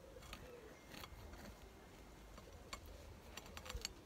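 Faint crackles and soft clicks of a knife sawing through the crusty top of a baked cheese scone on a plate, coming more often near the end.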